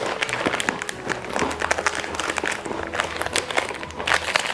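Plastic snack packets crinkling and crackling as they are handled and cut open with scissors, a dense run of sharp crackles, over background music.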